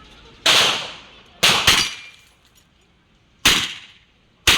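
Five pistol shots in an uneven string: one, a quick pair, then two more spaced about a second apart, each a sharp crack with a short echo.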